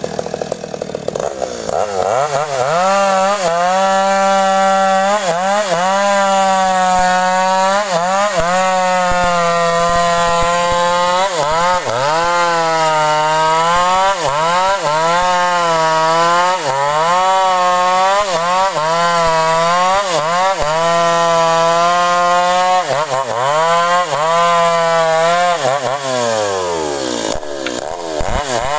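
Stihl two-stroke chainsaw running at full throttle through sengon wood, its engine note dipping again and again as the chain bites into the cut. It revs up a second or two in and winds down near the end as the throttle is let off.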